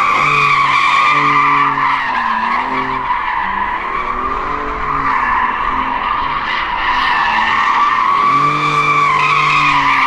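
Car tyres squealing continuously, wavering in pitch, while the engine revs up and down underneath, as in a drift or burnout.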